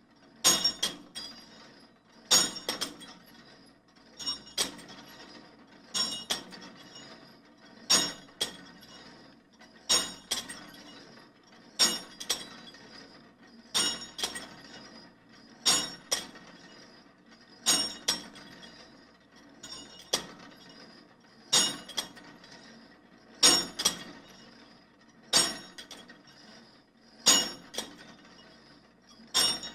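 Sharp impacts repeating about once every two seconds, each followed quickly by a softer second hit and a short bright ringing tail.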